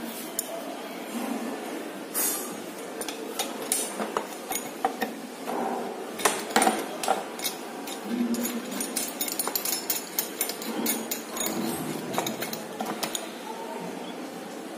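Small metal clinks and taps, irregular and scattered, as steel bolts and bent metal strip brackets are handled and fitted under a motorcycle's rear fender.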